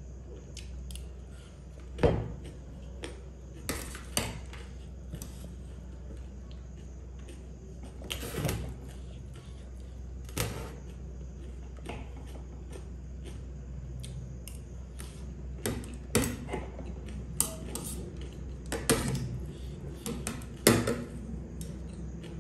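Steel spoon and fork clinking and scraping on a ceramic plate while eating noodles: irregular sharp clinks, the loudest about two seconds in and near the end.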